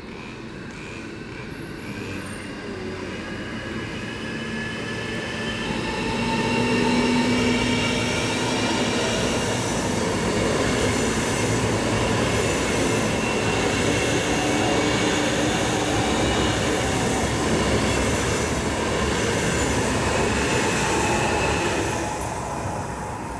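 An ES2G "Lastochka" electric multiple unit running past along the platform. Wheels rumble on the rails with several high whining tones over them. The sound swells over the first several seconds, holds steady while the cars go by, and drops away near the end as the last car clears.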